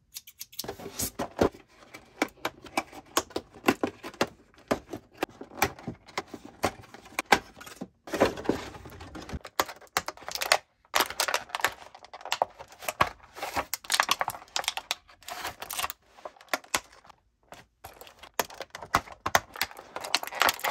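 Scissors snipping through a doll box's plastic packaging and ties, with plastic crinkling and rustling as the doll is freed from its tray: a long run of small sharp clicks and snips.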